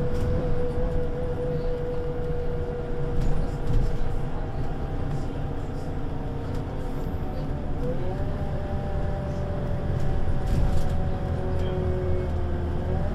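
Scania Citywide LE city bus (Scania CK280UB) driving in service, its five-cylinder diesel engine running with a steady low drone. A whining tone falls slowly and steps up in pitch twice, about eight seconds in and again near the end.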